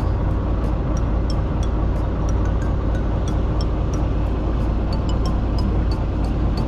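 Fishing boat's engine running at idle: a steady low rumble, with scattered short high ticks over it.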